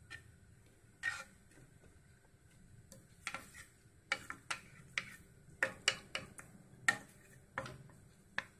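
Wooden spatula knocking and scraping against a frying pan while a thin coconut-milk gravy is stirred. It gives a string of about fifteen irregular sharp clicks, most of them from about a second in onward.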